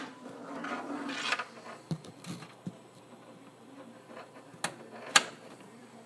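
Cables and plugs being handled at the back of a desktop computer: rustling and scraping for the first second or so, then several sharp clicks and knocks, the loudest a little after five seconds in.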